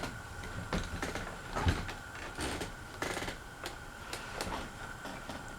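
Handling noises: scattered light clicks and knocks of objects being moved and fiddled with, over a faint steady high hum.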